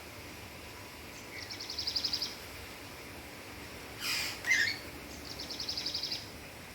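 Bird calls: a rapid high trill about a second in, a louder, harsh call that sweeps down about four seconds in, then a second rapid trill.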